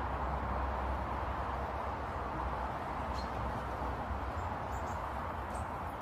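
Steady outdoor background hiss with a low rumble underneath, and a few faint, brief high bird chirps about three seconds in and again near the end.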